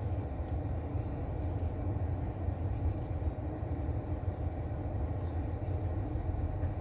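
Steady low rumble of a car's idling engine and air-conditioning blower, heard inside the cabin.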